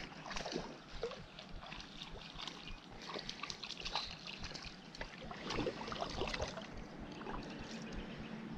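Shallow river water sloshing and splashing in irregular bursts as a small hooked smallmouth bass thrashes at the surface beside a wading angler's legs.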